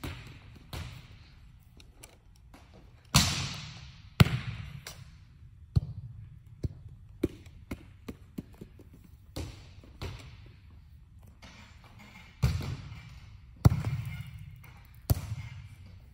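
Volleyballs being struck and bouncing on a hard gym court: a series of separate sharp slaps and thuds, each ringing out in the large hall, the loudest a few seconds in and again near the end.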